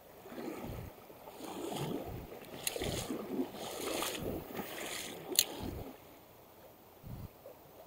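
Irregular water splashing and sloshing in the river, with two sharp clicks, the louder one near the end of the splashing.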